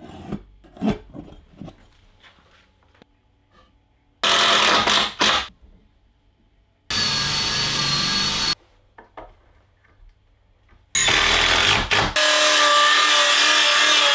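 Cordless power tools working softwood framing timber: light knocks and clicks, then short loud bursts of tool noise, one a drill driving a screw with a steady whine for about a second and a half. Near the end a circular saw runs and cuts through a length of timber.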